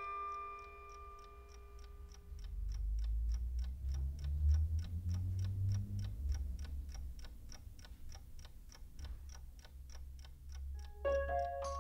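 Mechanical alarm clock ticking steadily, about four ticks a second, over a low rumble. Glockenspiel-like music notes die away at the start, and a new glockenspiel tune begins near the end.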